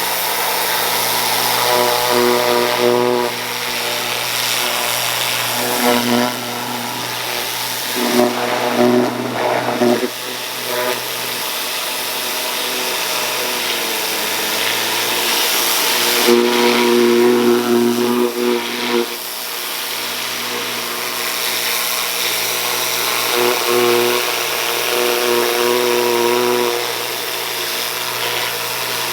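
Small engine running steadily, with a higher pitched whine joining in for a few seconds at a time, four times over.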